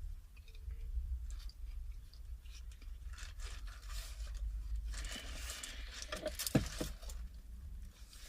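Close-miked eating and handling noises: scattered small crunches and crackles, growing busier about five seconds in, with one sharp knock at about six and a half seconds.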